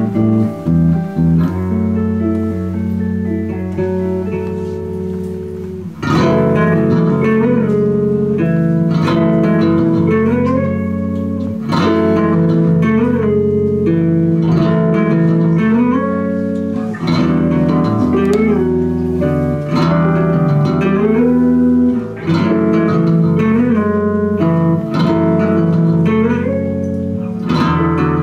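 Amplified electric guitars playing instrumental music live. Held chords fade over the first few seconds, then about six seconds in the playing comes in louder, with quick picked notes and several bent notes sliding up.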